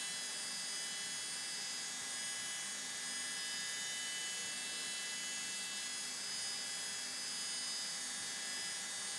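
UGINT PT 400S machining center's 24,000 rpm high-speed spindle running steadily while an end mill cuts a metal violin-shaped part: an even, high-pitched whine made of several held tones over a faint low hum.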